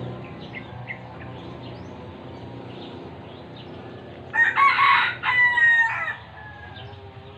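A rooster crowing once, about four seconds in: a loud call of about a second and a half ending in a slightly falling tail. Faint short bird chirps before it.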